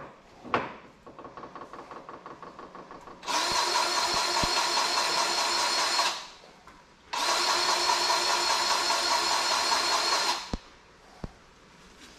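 Powered grease gun's motor running in two steady runs of about three seconds each with a short pause between, greasing a new linkage pin. Before the runs there is a quieter, rapid ticking for about two seconds.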